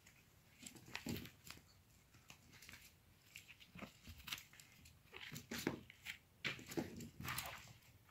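A small puppy tugging and shaking a fabric gardening glove on a wooden floor: irregular bursts of scuffling and rustling, starting about a second in and busiest in the second half.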